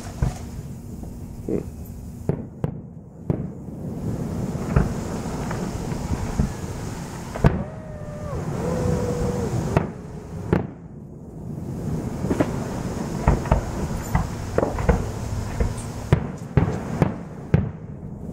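Aerial fireworks bursting: repeated sharp bangs and crackles, irregularly spaced, bunching into quick runs near the end, over a steady background rumble.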